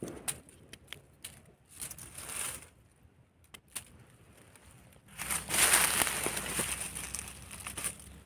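Dry leaf litter crackling and rustling in short bursts with a few sharp clicks, then a longer, louder stretch of rustling starting about five seconds in.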